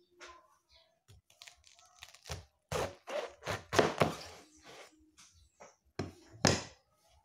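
Large kitchen knife cutting a whole head of cabbage in half on a wooden cutting board: crunching of the crisp leaves as the blade goes through, with knocks on the board. The two loudest knocks come near the end.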